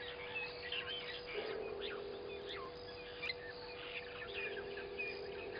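Several birds chirping and calling over one another in many short, varied notes, with a steady low hum underneath.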